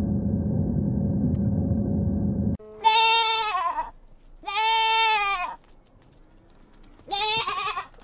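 A steady low rumble that cuts off suddenly, then a domestic goat bleating three times, each bleat about a second long.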